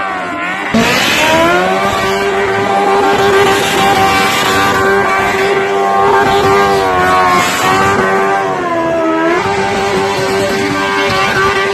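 Sport motorcycle engine held at high revs during a burnout, its rear tyre spinning on the asphalt. The revs dip and climb back about half a second in and again about nine seconds in.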